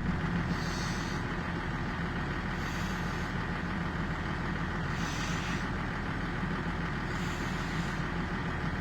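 A large engine idling with a steady low rumble, with a short hiss about every two and a half seconds.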